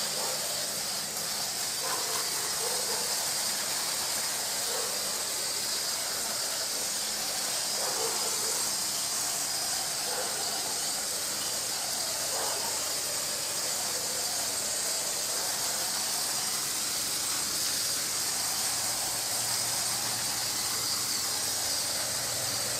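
Garden hose with a hose-end sprayer spraying a steady hiss of water onto a peach tree's leaves.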